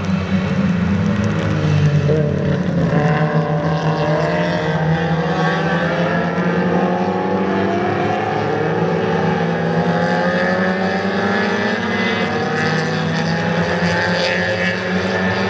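A pack of classic Mini race cars passing at racing speed, their small four-cylinder A-series engines revving hard. Several engine notes overlap, mostly rising in pitch as the cars accelerate out of the corner.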